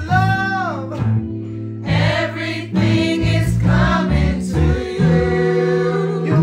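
A man and a woman singing a chant together, their voices held and sliding in pitch, over steady low instrumental backing.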